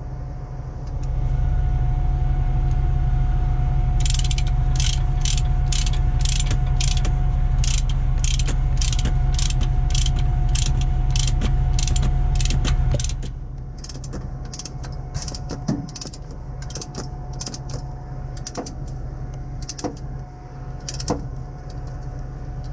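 Ratchet chain binder being cranked to tighten a tow chain, its pawl clicking steadily about three times a second, then in slower, irregular clicks. Underneath, a vehicle engine runs with a loud low rumble that drops sharply about 13 seconds in.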